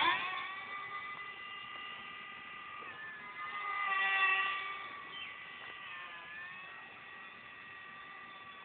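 RC model biplane's motor and propeller whining steadily as it flies overhead, the pitch dipping slightly now and then. It grows louder about four seconds in as the plane passes close, then fades as it flies off.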